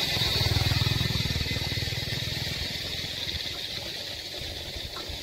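Motorcycle engine running close by, loudest about a second in and fading over the next few seconds as a second motorbike pulls ahead. Beneath it, a steady high-pitched drone comes from the forest.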